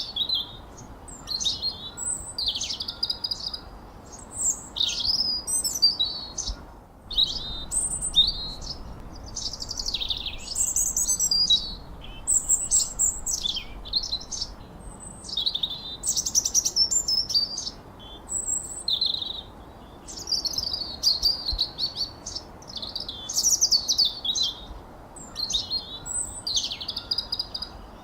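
Songbirds chirping and whistling: short, high, quickly warbling phrases follow one another almost without pause, over a faint steady background hiss. There is a brief break about seven seconds in.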